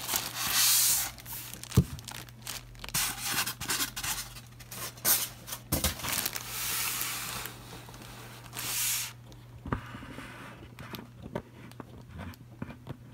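A clear plastic bag crinkling and rustling as the figure wrapped in it is handled, in bursts over the first nine seconds or so, with small knocks and taps of handling; after that only scattered quiet taps.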